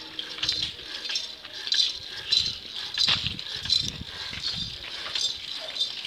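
Small child's bicycle with training wheels rolling over pavement, rattling and clicking irregularly.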